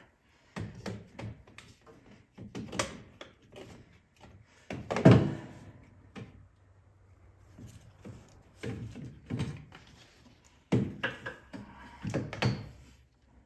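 Irregular knocks and clunks of hand tools and parts being handled while working in a UTV's engine bay, the loudest about five seconds in.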